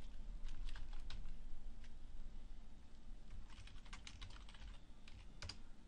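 Typing on a computer keyboard: quick clusters of key clicks in the first second or so, then further clicks in short groups after a pause. A steady low hum runs underneath.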